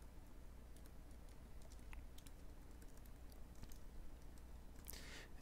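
Faint typing on a computer keyboard, a scatter of light key clicks with a mouse click, as a name is typed into a text field. A short soft hiss comes near the end.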